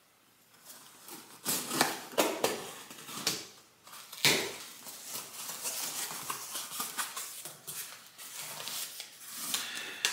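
A small cardboard parts box being opened by hand: flaps and tape tearing with sharp clicks and a loud snap about four seconds in, then paper and plastic packaging rustling and crinkling as the parts are pulled out.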